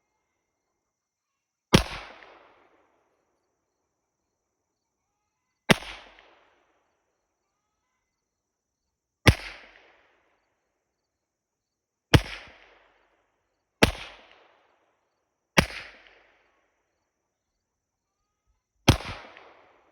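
Seven single shots from a 9mm Glock 17 Gen 2 pistol, fired one at a time at an irregular pace about one and a half to four seconds apart, each sharp crack trailing off in a short echo.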